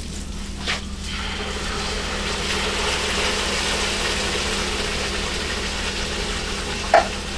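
Canned marinara sauce poured into a hot skillet of frying burger patties, sizzling steadily as it hits the pan, over a steady low hum. A short click about a second in and a sharper clack near the end.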